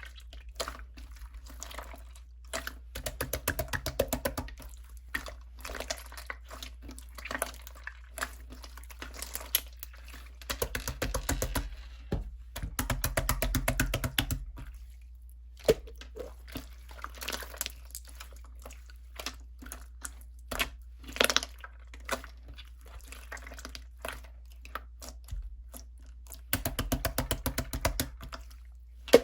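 Slime being squeezed and poked by hand, giving rapid trains of crackling clicks and small pops that come in bursts, with softer single pops between them, over a low steady hum.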